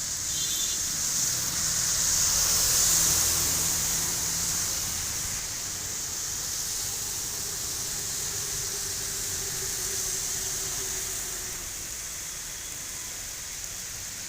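Steady rain falling as an even hiss, with a motor vehicle passing, loudest about three seconds in.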